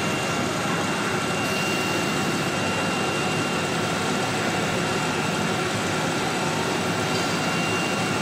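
Woodworking CNC router running steadily: a constant machine noise with a steady high-pitched whine.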